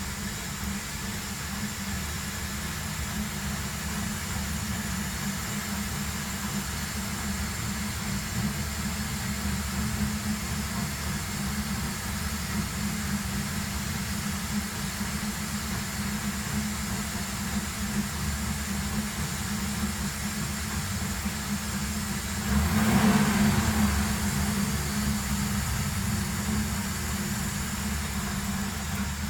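Ford Crown Victoria's 4.6-litre V8 running steadily at idle, with a louder swell lasting about a second and a half near the end.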